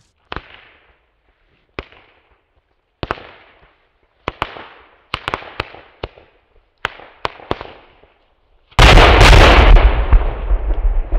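Firecrackers exploding one after another: about ten separate sharp bangs at uneven gaps, each with a short echo. Near the end a far louder blast goes off and its rumble carries on, slowly fading, for a couple of seconds.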